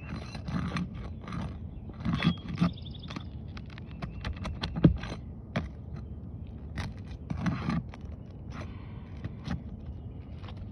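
Hand tool scraping and prying under a roof shingle to work it and its nails loose, with irregular scrapes and clicks and one sharp knock about five seconds in.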